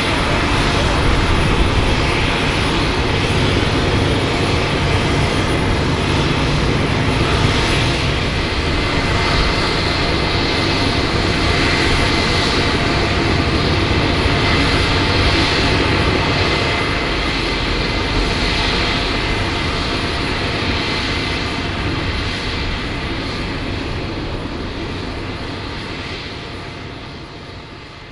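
Boeing 727's hush-kitted Pratt & Whitney JT8D jet engines idling: a steady rumble with a high, even whine, fading gradually near the end.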